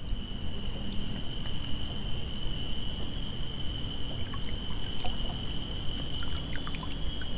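Steady high-pitched insect buzzing over a low rumble, with a few faint scattered ticks.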